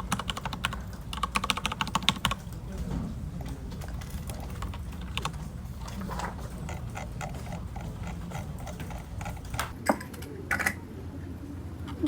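Typing on a computer keyboard: a fast run of keystrokes for the first two seconds or so, then slower, scattered keystrokes with two louder clicks about ten seconds in, over a steady low hum.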